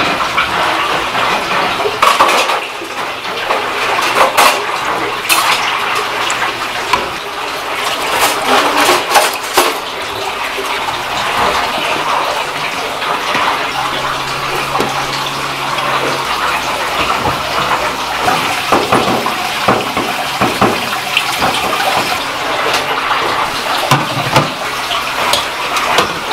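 Kitchen work sounds: water running and splashing, with metal bowls clinking and knocking now and then.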